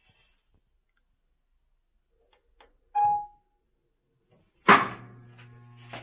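Whirlpool Cabrio top-load washer being started: a short beep from the control panel about three seconds in, then near the end a loud clunk from inside the machine, followed by a steady electrical hum with a hiss. The washer has a lid-lock fault (E2 F5 error) that makes it shut off after trying to start.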